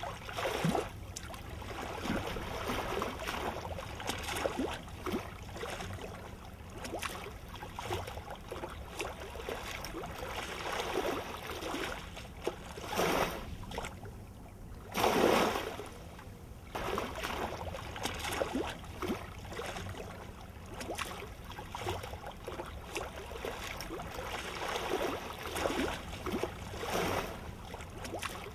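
Small waves lapping and breaking at the water's edge, in uneven surges every few seconds, the loudest about halfway through.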